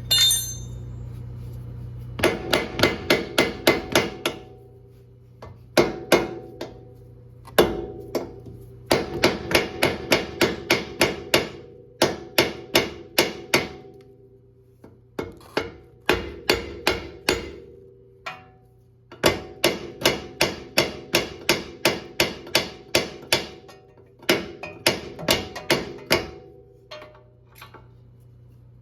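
Hammer blows on steel in quick runs of about four a second, each blow ringing, with short pauses between the runs: hammering to free the drive axle during a Honda CR-V axle replacement.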